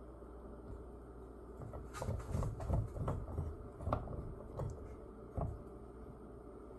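Handling noise from unpacking a fractal vise: a string of light knocks and clicks with dull thumps, starting about two seconds in and stopping after about five and a half seconds.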